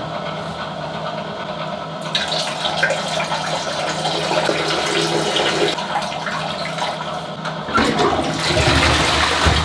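Toilet flushing: rushing water through the bowl and cistern, spreading and getting louder about two seconds in, with a stronger surge near the end as the flush lever on the cistern is pressed.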